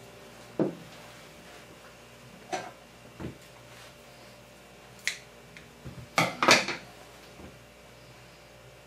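Kitchen items being handled and set down on a counter: about half a dozen separate knocks and clinks, the loudest pair about two-thirds of the way through.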